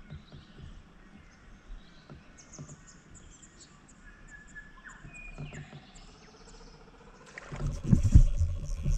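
Birds chirping and calling in short high notes. Near the end comes a run of loud low thumps and knocks over a steady hum.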